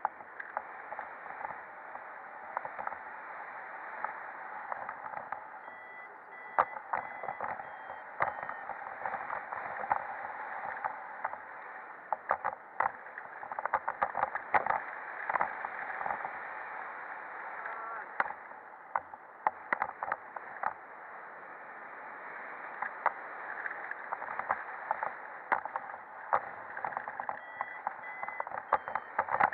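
Wind rushing and buffeting over the camera microphone in paraglider flight, crackling with many short pops. Faint short beeps come about six seconds in and again near the end.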